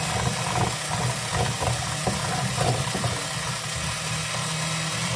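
Electric hand mixer running steadily, its beaters whipping cream cheese and mayonnaise in a glass bowl, with a few clicks between about one and three seconds in.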